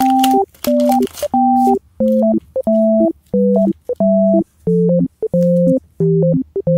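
Background music: a simple, bouncy synthesizer melody in short, separate notes over a lower accompanying tone. Light crinkling of the clear plastic wrap on the paper squishies is heard faintly in the first second or so.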